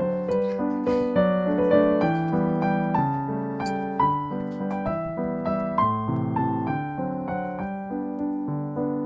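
Background piano music: a steady run of notes, each struck and fading.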